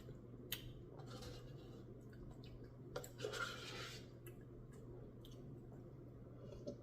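Faint sounds of someone eating a Blizzard: a couple of sharp clicks and soft scraping and chewing, over a steady low hum.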